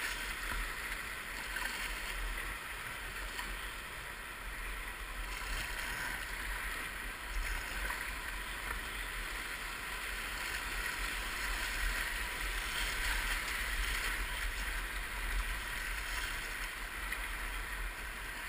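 Steady rush of whitewater rapids churning around a boat at water level, a constant hiss of moving water with no let-up.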